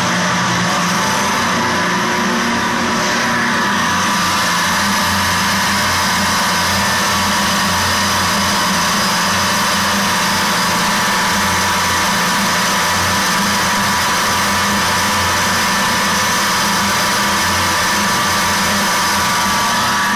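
Tesla-type bladeless disc pump (5 discs, 20 mm gaps) and its 18.5 kW electric drive running steadily at about 2,650 rpm. It gives a loud, constant hum with a higher whine over a rushing noise.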